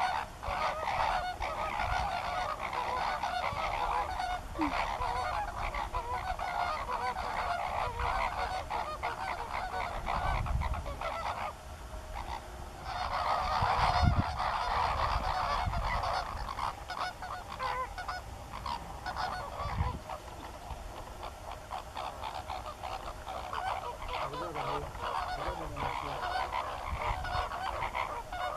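Flock of greater flamingos honking: a dense, goose-like clamour of many overlapping calls, the calling of a flock in group display. It dips briefly about twelve seconds in and swells again just after.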